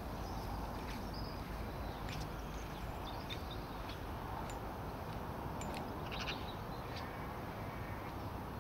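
Scattered bird chirps over a steady low outdoor background rumble.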